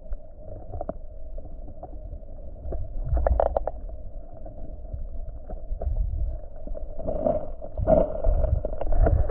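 Muffled water and rumble of a canoe on the river, with scattered knocks and louder spells of sloshing about three seconds in and again toward the end.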